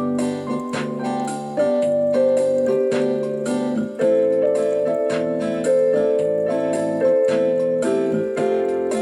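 Background music: piano playing sustained chords, with new chords struck every second or so.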